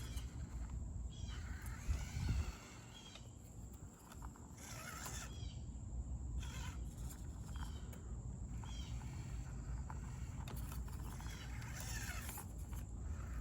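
Birds calling outdoors: repeated short chirps and falling whistled notes, over a steady low rumble, with a louder low thump about two seconds in.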